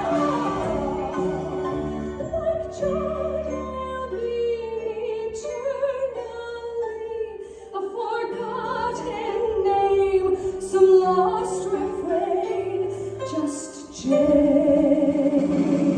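Music: a soprano singing in an operatic style with vibrato over instrumental accompaniment, swelling into a louder held note about two seconds before the end.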